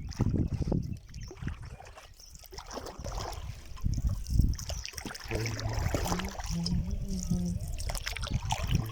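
Water sloshing and splashing around a small boat, with gusty rumble on the microphone. A low hum that shifts in pitch comes in about five seconds in.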